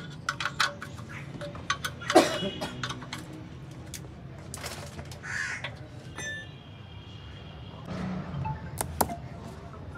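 Scattered metal clicks and taps of a spanner on a car's oil-pan drain plug. A loud harsh bird call comes about two seconds in.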